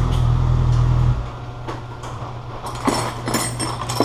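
A vehicle engine running with a steady low rumble that drops sharply about a second in, leaving a weaker hum. From past the middle, loose metal bolts and tools clink and rattle as hands rummage through a pile of hardware on the workbench.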